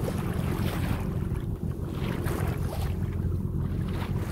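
Wind buffeting the microphone as a steady low rumble, over water washing along the hull of a sailboat under sail.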